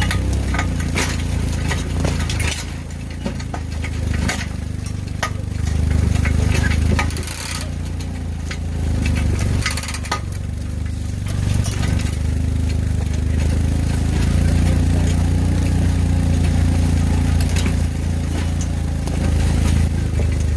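Yamaha Rhino 700 side-by-side's single-cylinder engine running at low, varying revs while towing a log on a skidding arch, with scattered knocks and clinks as the rig jolts over rough ground.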